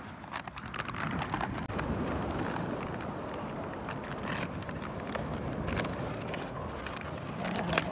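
Steady wind and surf noise, with scattered crackles and clicks from a plastic bottle being chewed and tugged between two dogs' teeth.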